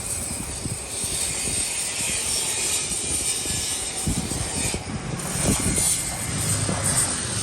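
Wind buffeting the microphone: irregular low thumps over a steady rushing hiss.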